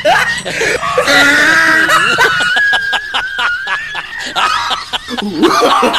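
People laughing hard, several voices overlapping with snickers and shrieks; a little past the middle comes a fast, even run of cackling laughter at one held pitch.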